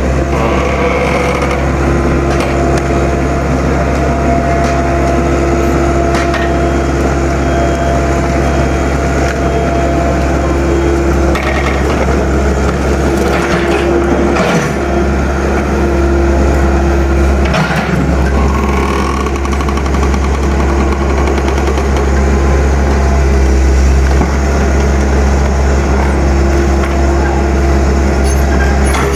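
Heavy earthmoving machine's diesel engine running steadily under load while tearing out large tree roots, with several sharp cracks and knocks from the wood and roots breaking.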